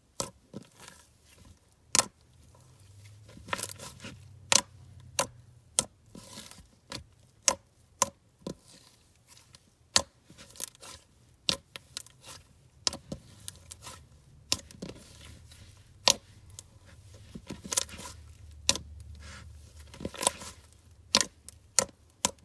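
Thick peach cloud cream slime being pressed, folded and poked by hand on a plastic mat, giving irregular sharp pops and crackles, roughly one or two a second, over soft squishing.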